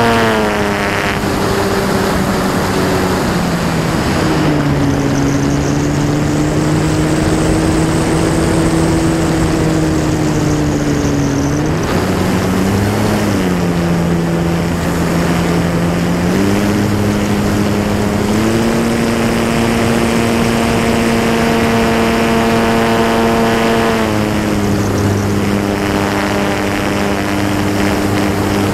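Techone Air Titan RC plane's electric motor and propeller, heard from the onboard camera: a steady pitched drone that falls as the throttle comes back in the first few seconds, rises and falls briefly about halfway through, steps up twice, then drops again late on. Rushing wind noise runs underneath.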